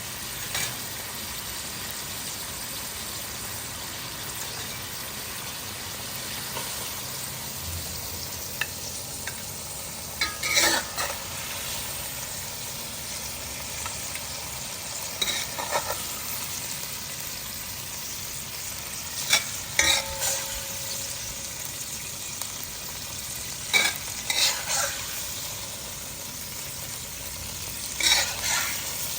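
Food sizzling steadily in hot oil in a pan, with a spatula scraping and knocking against the pan now and then as it is stirred.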